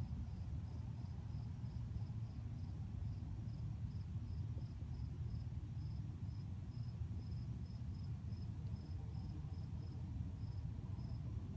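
A cricket chirping in a steady run of short, high chirps, about three a second, which thin out near the end. Under it runs a steady low rumble.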